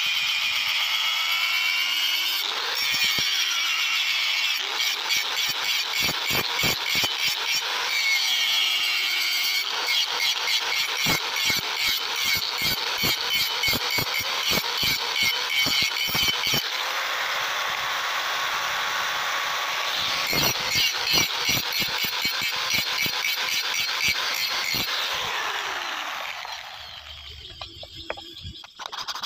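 Angle grinder grinding a steel billhook blade: a high-pitched whine with rapid rhythmic pulsing as the disc is worked along the blade. It stops a few seconds before the end.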